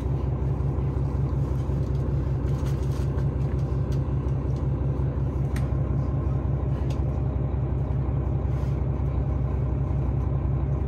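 Steady low rumble of the Hokuto limited express's diesel railcar engines idling, heard inside the passenger car. A few soft rustles of magazine pages being turned sound over it.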